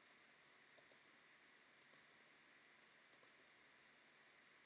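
Computer mouse clicking: three quick double clicks about a second apart, over near silence.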